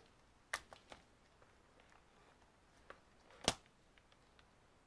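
Faint handling of laptop power-adapter cables and a plastic charger brick: a few small clicks and one louder sharp knock about three and a half seconds in.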